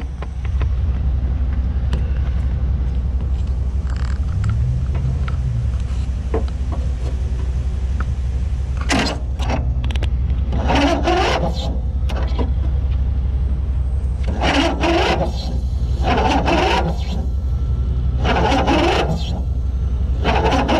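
Riding lawn mower's small gas engine running at a steady speed, which the owners suspect has a stuck valve. From about halfway on, five or six short bursts of hiss, each about a second long, cut over the engine.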